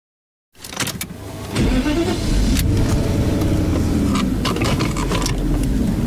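A few sharp clicks, then about a second and a half in a car engine starts and runs steadily, with occasional clicks over it.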